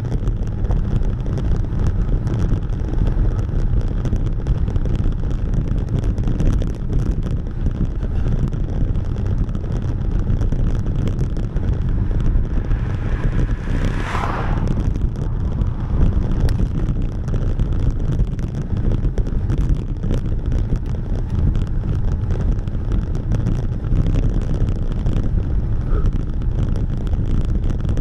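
Wind rushing and buffeting over the microphone of a moving camera, a steady low rumble throughout. About halfway through, a brief higher-pitched sound rises above it for around a second.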